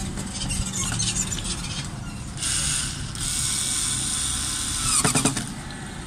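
Cordless electric screwdriver driving a door-trim screw. The motor runs in two stretches, from about two and a half seconds and again from about three seconds in, and ends in a quick run of ratcheting clicks about five seconds in.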